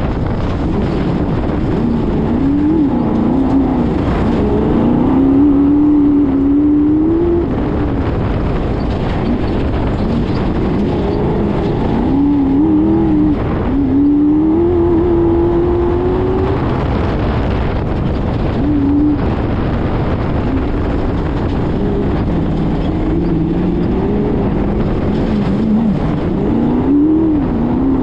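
Off-road race car's engine, heard from the bonnet, revving hard as the car drives over dirt tracks; its pitch climbs and drops again and again as it accelerates and backs off, over a constant low rumble from the running gear and wind.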